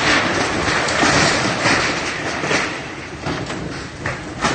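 Loud rolling rumble of distant explosions echoing, fading over a few seconds, with a sharp crack near the end.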